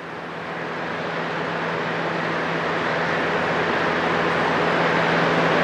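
Steady background noise with a faint low hum, slowly growing louder.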